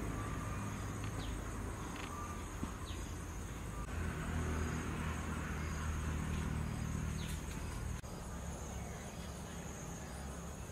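Steady high-pitched insect drone over a low outdoor rumble; the rumble grows louder about four seconds in and drops back about eight seconds in.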